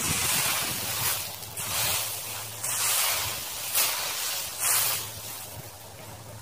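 Leaf rake dragging through dry leaves and dirt: a series of rustling, scratchy strokes, about one a second.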